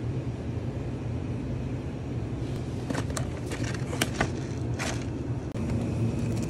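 A shrink-wrapped cup of instant ramen is taken off a shop shelf and handled, giving a few sharp crinkles and clicks about halfway through, over a steady low hum. The hum cuts out for a moment near the end and comes back.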